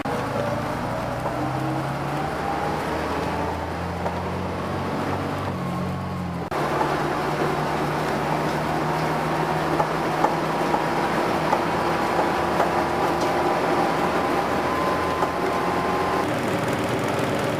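A vintage bus's engine and drivetrain heard from inside the saloon on the move, rising in pitch as the bus pulls away and accelerates. After an abrupt cut about six and a half seconds in it runs steadily with a thin whine, which drops away shortly before the end.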